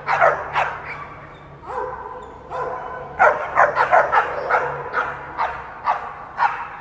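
American Pit Bull Terriers barking at each other: scattered loud barks, with a fast string of barks about three to four seconds in.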